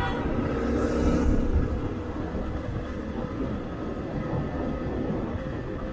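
Steady low rumble of a two-wheeler riding along a road: the engine running with tyre and wind noise.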